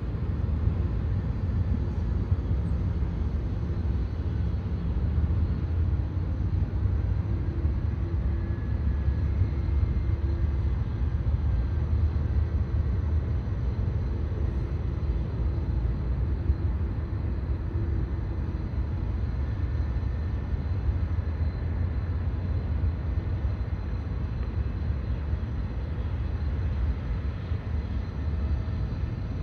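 Airbus A300 freighter's jet engines running at low taxi power, heard from a distance as a steady low rumble.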